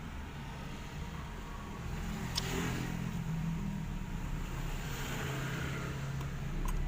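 Low, steady rumble like a motor vehicle engine running in the background, with a single sharp click about two and a half seconds in.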